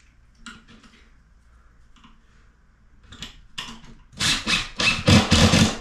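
Cordless drill driving a screw through a plastic pipe strap into a plywood wall, run in several short loud bursts from about four seconds in, after a few faint handling clicks.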